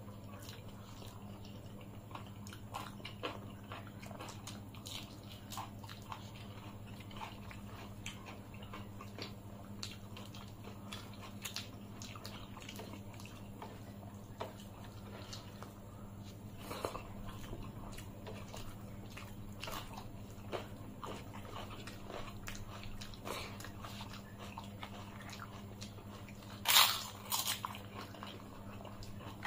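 Close-miked eating sounds: fingers mixing rice and curry on metal plates and chewing, as small scattered clicks and squelches over a steady low hum. Near the end, fried papad is bitten with two loud crunches.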